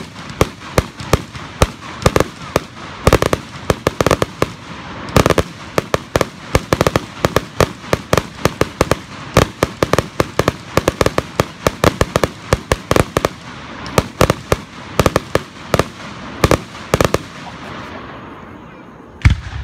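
Aerial fireworks going off in a rapid barrage of sharp bangs, several a second. The bangs thin out near the end, then one last loud bang.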